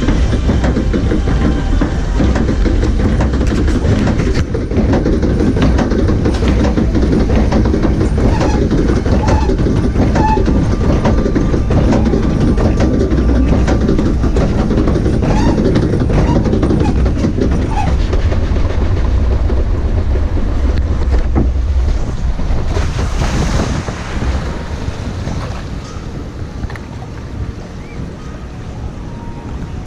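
A log flume ride's boat-conveying machinery running with a loud, steady rattling rumble and many small clicks. About 23 seconds in there is a short rush of noise, and the rumble then drops away to a quieter wash.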